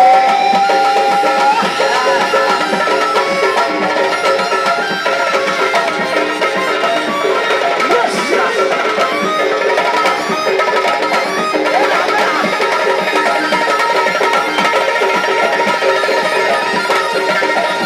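Tunisian folk music: hand drums keep a steady, busy beat under a held melodic line.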